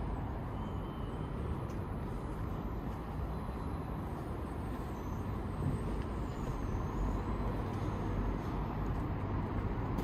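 City street traffic: a steady low rumble of motor vehicles, with a heavy vehicle such as a bus or truck among them.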